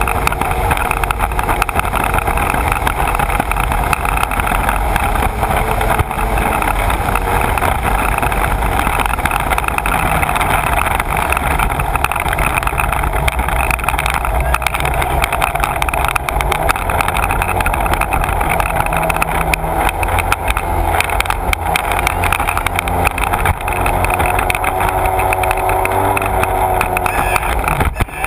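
Sea-Doo personal watercraft running steadily at speed, its engine mixed with the rush of water spray thrown up around the hull.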